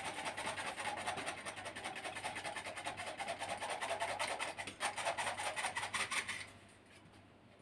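Handheld metal flour sifter being worked over a bowl, its mesh scraper rasping in a fast, even rhythm as flour is sifted into the dough mixture. The rasping stops about six and a half seconds in.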